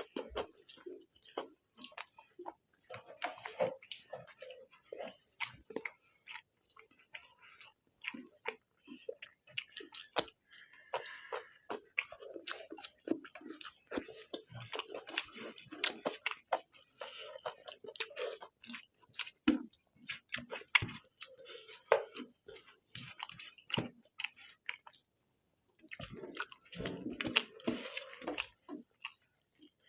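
Close-up chewing and mouth noises of people eating egg curry and rice: wet smacks and many sharp little clicks, irregular and continuous. The sound drops out completely for about a second near the end.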